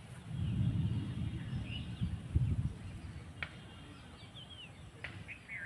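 Birds chirping with short, scattered calls. A low rumble, the loudest sound, swells up in the first three seconds and fades out, and a couple of sharp ticks come later.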